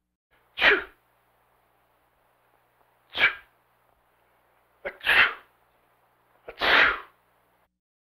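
A man sneezing four times, each a short, sharp burst, about two seconds apart.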